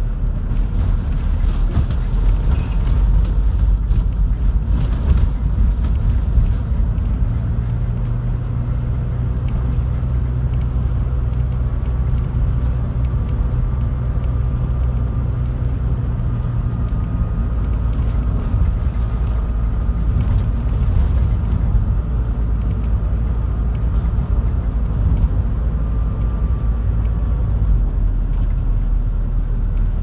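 Toyota HiAce van driving, heard from inside the cabin: a steady low engine and road rumble whose engine note shifts a few times.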